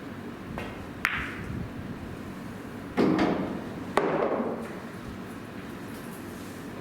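Pool balls knocking during a shot: a sharp click about a second in, then two louder knocks about a second apart, each fading away.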